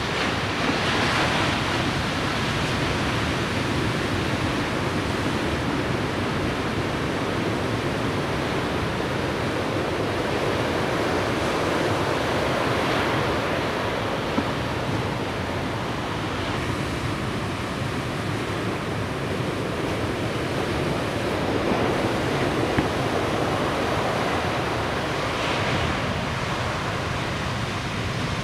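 Large ocean waves breaking in heavy surf, a steady rushing wash of whitewater that swells louder a few times as waves break.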